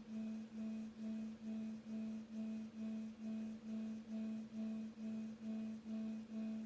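Electronic sonification presented as the sound of the star Gliese 674: a low, pure tone with fainter higher tones above it, pulsing evenly a little over twice a second.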